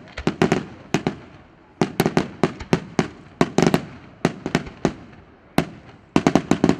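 Aerial fireworks display: quick volleys of sharp, echoing bangs, several a second, with brief gaps between the volleys.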